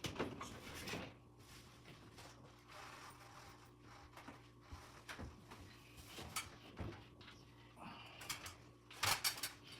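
Scattered light clicks and knocks of hand work on ceiling light wiring, with a quick cluster of sharp clicks near the end, over a faint steady hum.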